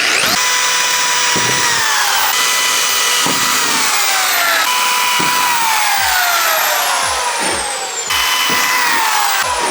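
Electric power tool running under load on the car's fender metal: a loud whine that sags slowly in pitch as it bites, then jumps back up, about four times over.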